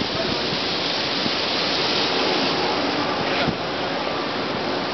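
Plaza fountain's water jets splashing into the basin: a steady rush of falling water, a little quieter after about three and a half seconds.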